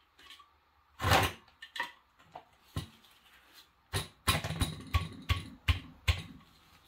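Metal clanks and sharp taps of a pry tool working at the valve cover of a Honda small engine: one loud clatter about a second in, then a quick run of about eight knocks near the end.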